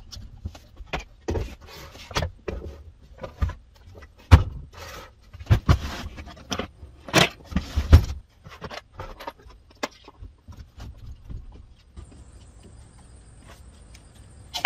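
Irregular knocks, clicks and rattles of cordless power tools being picked up and handled, with footsteps. The loudest knocks come about four to eight seconds in, and a faint steady high whine comes in near the end.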